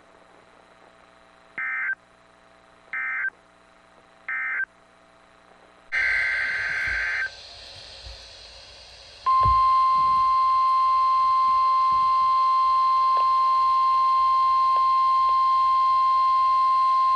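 Three short bleeps of NOAA Weather Radio SAME digital data tones (the end-of-message code closing a warning), then a longer, roughly one-second burst of SAME header data. About nine seconds in, the steady single-pitch 1050 Hz weather radio warning alarm tone starts and holds, sounded here as the weekly test of the receiver alarm.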